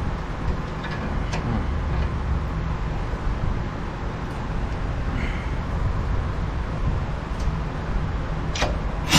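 Steady low mechanical rumble with a few light metal clicks as large pliers grip and twist at a sway bar link nut.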